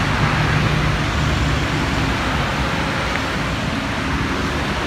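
Steady traffic noise of vehicles driving along a rain-wet main road, with a low engine hum through the first couple of seconds.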